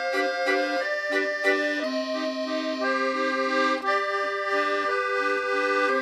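Accordion music with sustained reedy chords over a bouncing accompaniment, the harmony changing about once a second.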